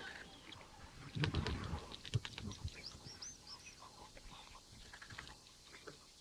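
Irregular clicks and crunches of cheetahs tearing and chewing at a gazelle carcass, with a louder bump about a second in. A small bird chirps a few short notes near the middle.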